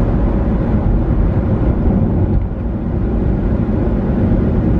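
Steady low rumble of a moving car heard from inside the cabin: road and engine noise with no distinct events.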